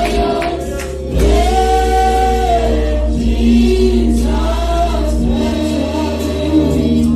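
Church choir singing a gospel song, with long held notes over a steady low accompaniment; it gets louder about a second in.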